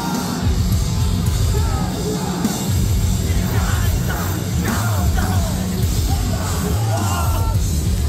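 Metalcore band playing live at full volume, heavy drums and bass under screamed vocals, with fans yelling along into the microphone.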